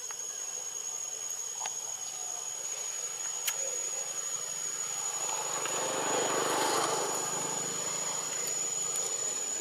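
A steady, high, thin insect drone with a few sharp clicks, while a motor vehicle approaches and passes, loudest about six to seven seconds in, then fades a little.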